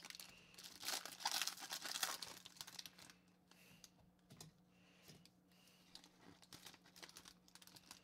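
Foil wrapper of an SP Game Used hockey card pack crinkling and tearing as it is ripped open by hand. The crinkling is loudest in the first two or three seconds, then goes on as softer, scattered crinkles.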